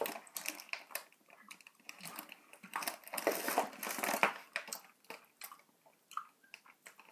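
Plastic packet of mini doughnuts crinkling and rustling as it is handled and turned over, in irregular crackles that are loudest from about three to four seconds in.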